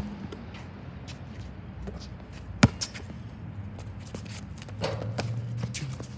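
A basketball bouncing on an outdoor hard court: a few scattered bounces, the loudest about two and a half seconds in. A low hum comes in briefly near the end.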